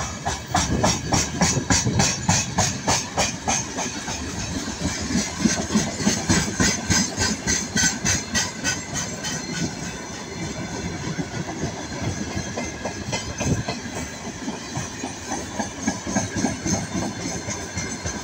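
Freight train's open gondola wagons rolling past, their wheels clattering over the rail joints in a fast, even rhythm of about five knocks a second over a steady hiss. The clatter is strongest in the first half and lighter after about ten seconds.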